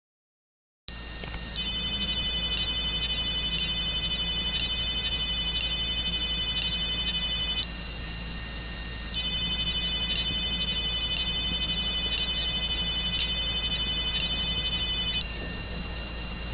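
Piezo speaker of an ATtiny85 countdown timer beeping: a short high beep about a second in, then two longer beeps of about a second and a half each, near the middle and near the end. A steady high-pitched whine sounds between the beeps.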